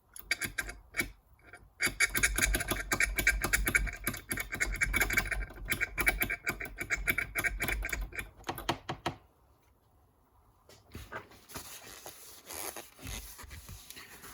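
Rapid, scratchy rubbing or scrubbing by hand for about nine seconds, then a short pause and fainter rustling near the end.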